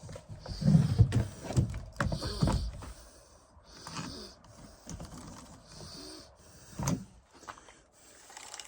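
Irregular clicks and knocks of metal and plastic as a chainsaw's bar, chain and side cover are handled and adjusted, busiest in the first couple of seconds with another sharp click near the end, over repeated audible breaths through the nose.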